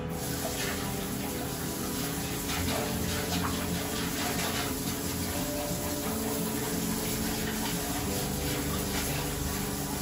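Handheld bidet sprayer hosing water through an air conditioner's mesh dust filter, the water splashing into a toilet bowl: a steady rush of spray.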